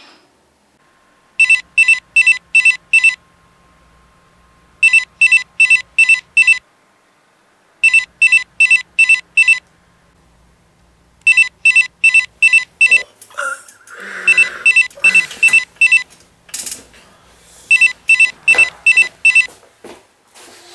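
Telephone ringing with an electronic trill: six bursts of about six rapid high beeps each, every burst under two seconds long and repeating about every three seconds. Rustling and a few knocks come between the last rings.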